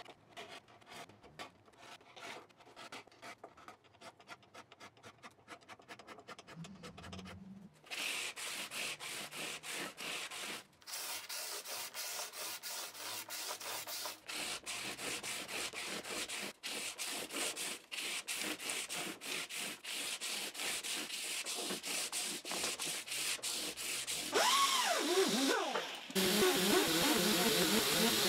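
Hand fret file scraping in quick strokes across the nickel frets of a maple guitar neck, knocking down high spots in a fret dress. From about eight seconds in it turns to louder, denser rubbing strokes along the frets. Near the end a small motorised polishing wheel spins up, glides in pitch, and then runs steadily as it buffs the frets.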